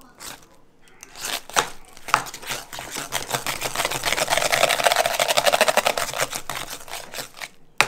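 Wire balloon whisk beating mashed potatoes in a stainless steel bowl: rapid clicking and scraping of the wire loops against the metal. It speeds up and gets louder through the middle, then slows to scattered strokes near the end.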